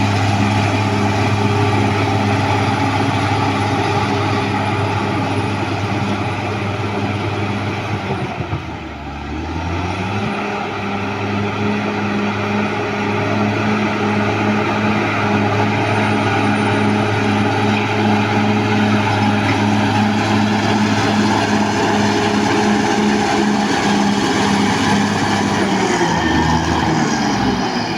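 Caterpillar D6R XL bulldozer's diesel engine running hard. Its pitch drops about eight seconds in, then climbs back up, and it slows again near the end.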